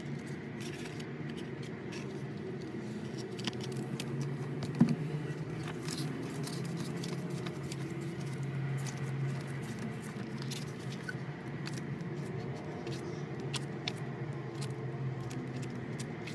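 Album packaging being handled: scattered soft clicks and rustles, with one sharper knock about five seconds in, over a steady low background hum.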